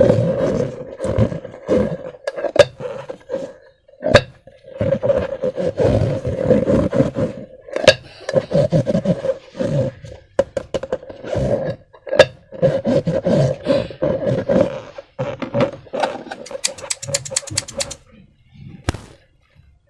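Hands working slime and a rubber balloon: wet squelching with a rubbery groaning squeak, scattered clicks, and a quick run of clicks near the end before the sound stops.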